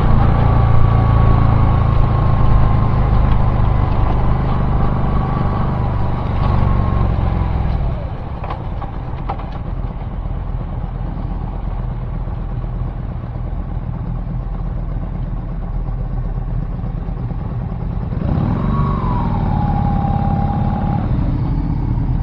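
Car driving, heard from inside the cabin: a steady engine and road rumble, with a whine that slides down in pitch during the first several seconds and again near the end. The rumble gets quieter about eight seconds in.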